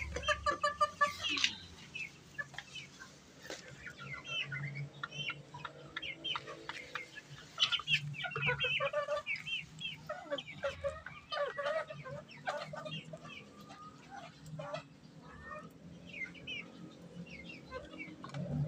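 A flock of kate bantam chickens clucking, with many short calls overlapping, busiest in the middle, over a faint steady low hum.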